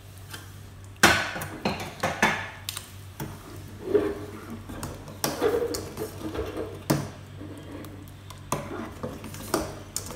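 Metal spoon scraping and clinking against the sides and bottom of a stainless steel saucepan as custard is stirred, in irregular knocks, the loudest about a second in. It is the continual stirring that keeps thickening custard from lumping and sticking to the pan.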